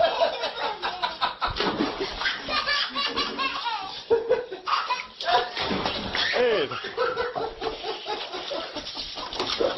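People laughing hard, in repeated peals and giggles.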